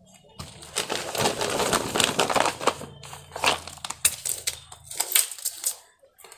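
Crunching and crackling of potting soil and pot being handled while a plant is repotted, with many sharp clicks; it stops a little before the six-second mark.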